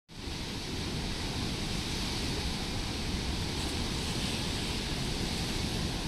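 Steady rush of water released through a dam's outlet and churning in the pool below.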